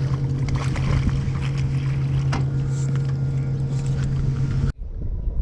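A boat motor running steadily, a constant low hum with water and wind noise over it, cutting off abruptly near the end.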